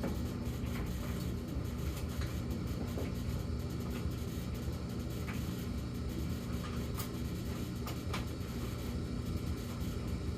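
Samsung gas dryer running with a steady low-pitched hum. This is the low phase of an intermittent hum that comes back every few minutes, following a higher hum, and whose cause the owner doesn't know. A few faint irregular ticks sound over the hum.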